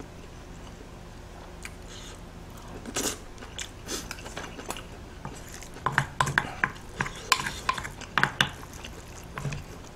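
Spoon stirring and scraping in a hot stone bowl of dolsot bibimbap: a single clink about three seconds in, then a quick run of sharp clinks and scrapes in the second half.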